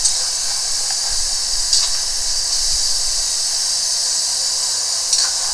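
A steady hiss throughout, with a couple of light clicks, about two seconds in and again near the end.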